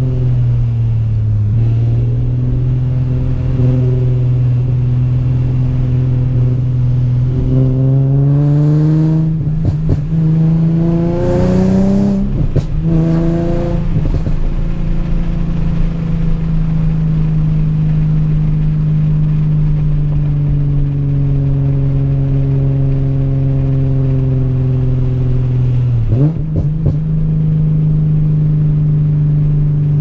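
Infiniti G37's 3.7-litre V6 with an aftermarket exhaust, heard from the cabin while driving. It runs steadily, revs up with a rising pitch through the middle with gear changes, and gives a few sharp exhaust pops and crackles, with another burst of them near the end as the revs drop.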